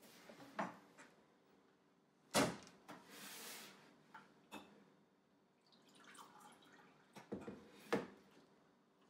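Kitchen handling sounds: a sharp clack of a cabinet door or glass about two seconds in, water poured from a plastic filter pitcher into a drinking glass, and a few knocks of glass and pitcher on the counter near the end.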